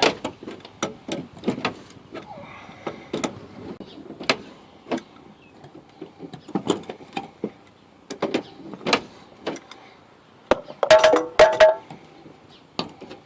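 Adjustable wrench working a large rusty nut on a trailer axle mount: irregular metallic clicks and knocks as the wrench is fitted and turned. A few louder, ringing metal clanks come close together near the end.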